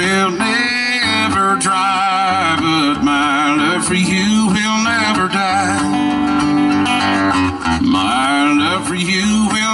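A man singing with his own strummed acoustic guitar, picked up through a microphone and PA.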